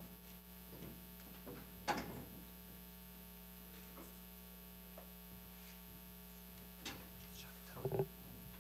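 Steady electrical mains hum from the sound system, with a few faint knocks. Near the end, a louder bump and rustle as a laptop on the lectern is handled.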